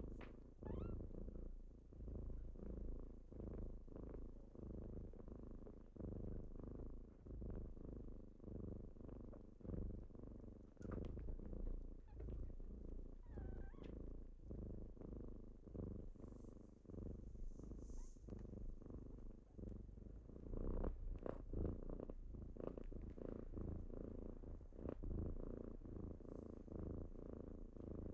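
A kitten purring, a steady low rumble that swells and eases with each breath, with a few faint rustles of fabric.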